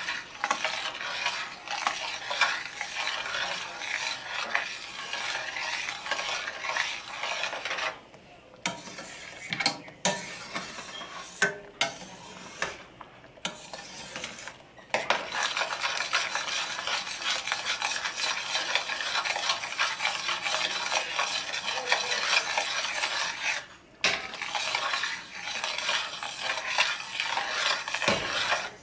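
Metal spoon stirring a thick cream-and-cheese Alfredo sauce in a stainless steel skillet: a steady run of quick scraping strokes against the pan. The stirring pauses briefly about eight, thirteen and twenty-four seconds in.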